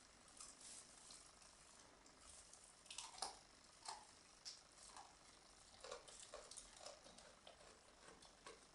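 Faint crunching and crackling as a goat bites and chews needles off Christmas-tree conifer branches, in short irregular clicks that come about twice a second from about three seconds in.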